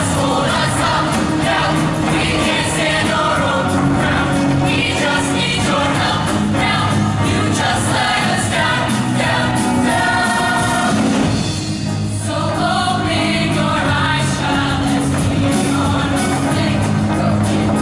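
Show choir of mixed voices singing together over instrumental accompaniment.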